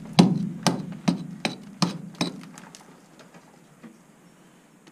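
A rock pick strikes a hard rock face in a quick run of sharp blows, about two to three a second, chipping out ore for sampling. After about two and a half seconds the blows give way to a few faint taps.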